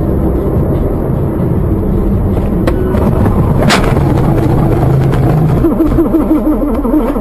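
Loud, steady road and engine rumble inside a moving car, broken by a sharp impact bang about three and a half seconds in: the car colliding.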